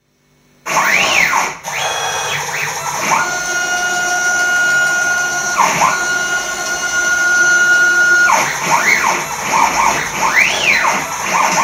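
Stepper motors driving the axes of a homemade CNC router on a test run, starting after a brief silence: whines that rise and fall in pitch as each move speeds up and slows down, with a steady whine held for about five seconds in the middle during a constant-speed move.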